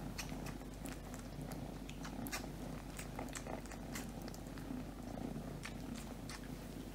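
Cats purring steadily and low while a mother cat nurses her kittens, with scattered faint clicks throughout.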